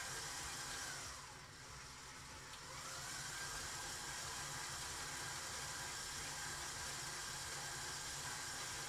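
Electric stand mixer running with a steady whirring whine; it winds down about a second in, stops briefly, then spins back up shortly before three seconds in and runs on steadily.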